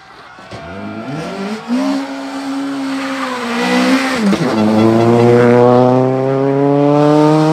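Peugeot 208 rally car's engine revving hard under acceleration. Its pitch climbs, dips briefly about four seconds in, then climbs steadily again.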